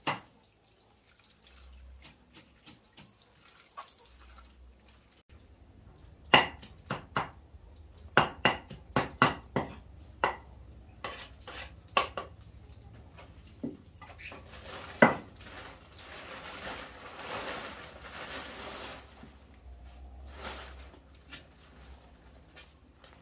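Irregular knocks and clatter of metal pots and utensils, a dozen or so sharp strikes, followed a little past the middle by a few seconds of splashing water.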